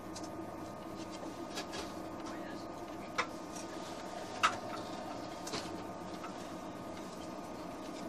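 Inside a TGV Atlantique running at line speed: a steady electrical hum from the train's AC traction equipment over rolling noise. Two sharp clicks cut through, the louder one about four and a half seconds in.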